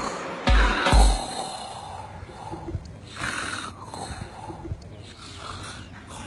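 Two deep bass-drum thumps of a remix beat end about a second in, then a man's snoring carries on, rough and rasping with snorts.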